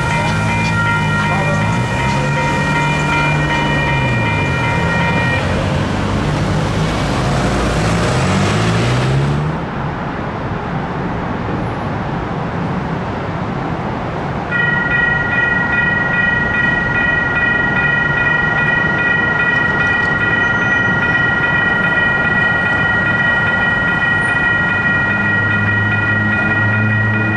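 Grade-crossing warning bell ringing steadily while a train rumbles past; the train noise cuts off abruptly about nine seconds in. A few seconds later a crossing bell starts ringing again and keeps on steadily.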